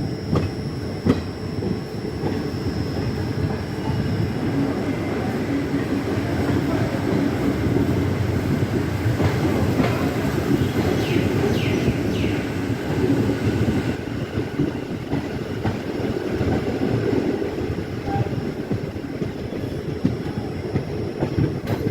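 Passenger train running along the track: a steady rumble of wheels on rail with clickety-clack from the rail joints. About halfway through there is a brief faint wheel squeal.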